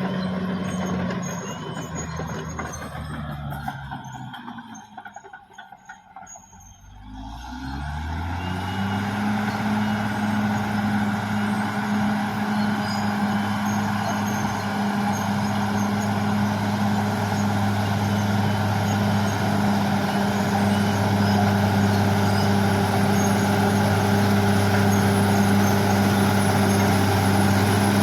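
Caterpillar D6R XL bulldozer's diesel engine. Its revs fall away over the first few seconds and it goes quiet for a few seconds, then it revs up again about eight seconds in and runs steadily at high revs for the rest.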